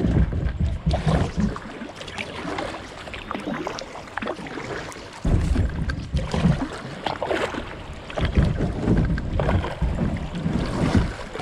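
Wilderness Pungo kayak's hull scraping and grinding over the rocky bed of a shallow river, in rough stretches that come on suddenly about five seconds in and again about eight seconds in: the water is too low to float clear.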